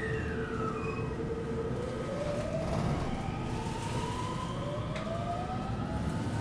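521-series electric train pulling away: the inverter and traction motors whine in gliding tones, one falling at the start and then others rising in steps as the train accelerates, over a low rumble from the running gear. One sharp click about five seconds in.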